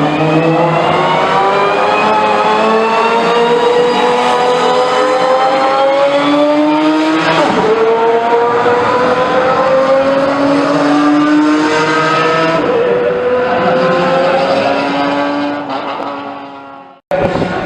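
Pagani Zonda Revolución's V12 accelerating hard, its pitch climbing steadily through the gears with upshifts about seven and a half and twelve and a half seconds in. It fades as the car pulls away, and the sound cuts off abruptly near the end.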